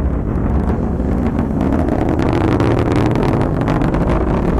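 Atlas V rocket's RD-180 first-stage engine in powered ascent: a loud, steady low rumble with crackling that grows stronger from about halfway through.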